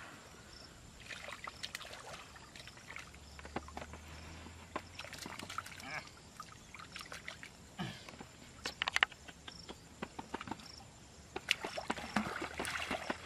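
Hands groping through shallow muddy water and mud, sloshing and splashing in irregular bursts with small wet squelches.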